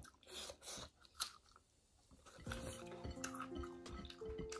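A person chewing food close to the microphone, in irregular short clicks and mouth noises. Soft background music with held notes comes in about halfway.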